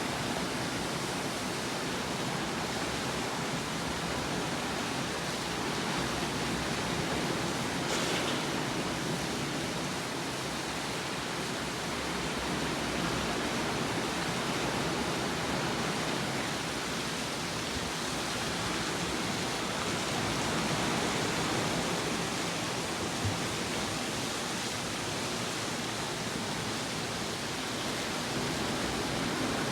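Steady, even rushing noise of outdoor ambience, with a brief faint hiss about eight seconds in.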